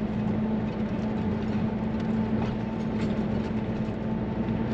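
2018 Coachmen Leprechaun Class C motorhome driving slowly, heard from inside the cab: a steady engine hum with light rattles.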